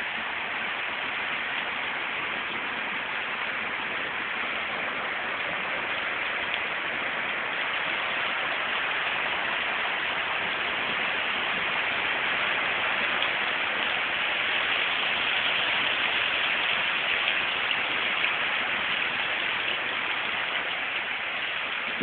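Heavy rain falling on a flooded yard, splashing into standing water and onto wet ground. It makes a steady hiss that grows a little louder in the middle.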